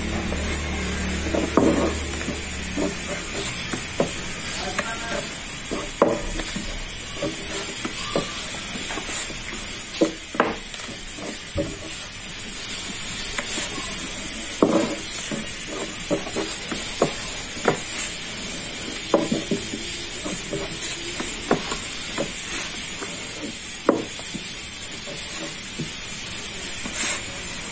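Long thin wooden rolling pin (oklava) rolling yufka dough wrapped around it on a wooden board, with irregular knocks and taps as the pin meets the board, over a steady hiss.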